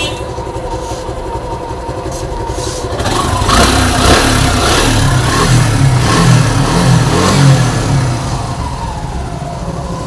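Suzuki Gixxer SF single-cylinder engine idling after a start, then revved for several seconds from about three seconds in and easing back down. It carries a tak-tak-tak ticking that the mechanic puts down to a worn cam chain tensioner.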